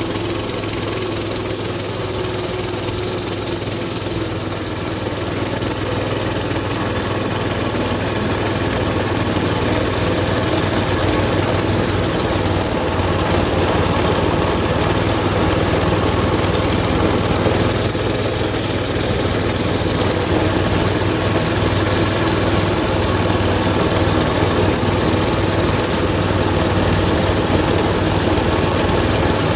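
An engine running steadily at a constant pitch, with no revving.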